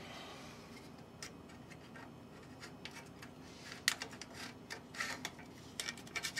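Faint handling sounds at a bandsaw's ceramic blade guides: paper rubbing and light ticks as a tight paper shim is worked out from between a guide block and the blade. A few sharp clicks come in the second half, the loudest about four seconds in.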